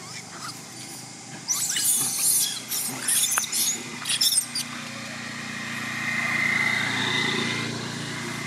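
Young long-tailed macaques give a quick run of shrill squeals from about a second and a half in until about four and a half seconds. Then a motor vehicle passes on the road, its engine growing louder and fading away.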